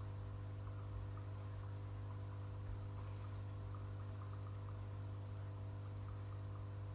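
GEX GF-1 aquarium air pump humming steadily as it drives the air stone, with faint light ticks from the bubbles scattered throughout.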